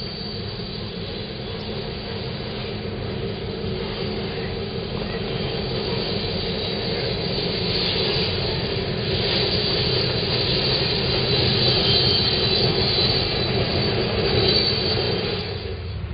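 Canadian National diesel locomotive hauling tank cars past at close range: a steady engine rumble that grows louder as it approaches and goes by, with the hiss of the train's rolling noise building from about halfway through.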